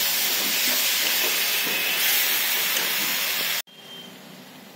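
Onion and tomato masala sizzling loudly in hot oil in an aluminium kadhai while it is stirred with a metal spatula. The sizzle cuts off abruptly about three and a half seconds in.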